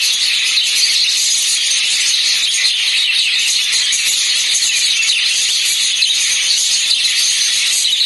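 A flock of lovebirds chattering, a dense, steady high-pitched chirping.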